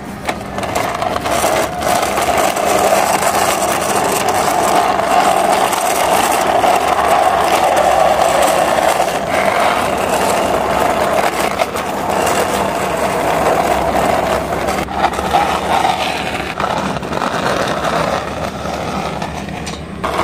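Plastic toy police car pushed by hand along a rough concrete wall top, its plastic wheels rolling and grinding with a steady whirring rattle and a few clicks.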